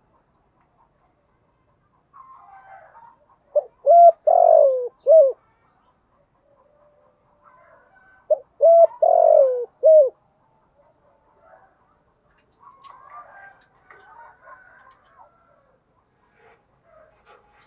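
Spotted dove cooing: two loud three-note phrases, a short note, a longer falling note and a short note, about four and a half seconds apart. Fainter chirps of other birds come between them.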